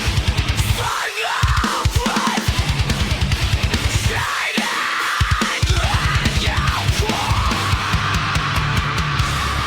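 Heavy metal music: rapid, fast-repeating bass-drum beats under guitar.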